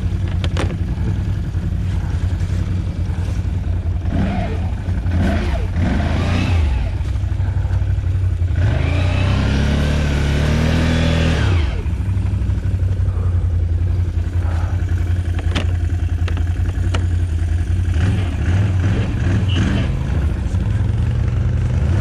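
ATV engine running steadily, revved hard for a few seconds near the middle, its pitch climbing and then dropping back, with scattered knocks and clatter.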